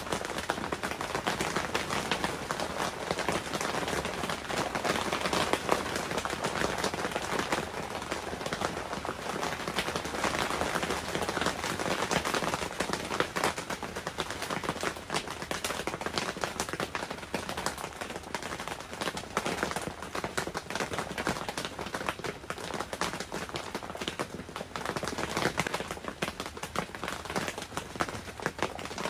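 Rain pattering steadily on a clear plastic tent, a dense stream of small drop impacts.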